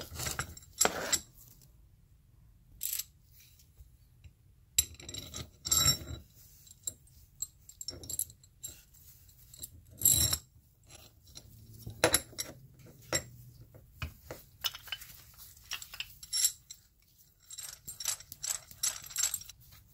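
Metal parts of a 3½-inch Sears bench vise handled during reassembly: irregular clinks, clicks and scrapes as the movable jaw, lead screw and spring are fitted together, with a quick run of small clicks near the end.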